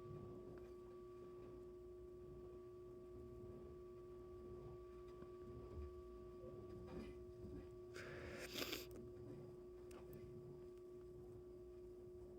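Near silence: room tone with a faint steady hum, and a few faint rustles of parts being handled, the most distinct about eight and a half seconds in.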